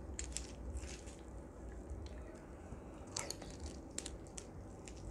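Close-miked eating of roast duck: a few wet clicks early on, then a bite into the duck piece about three seconds in, with crisp crunching from the skin followed by chewing.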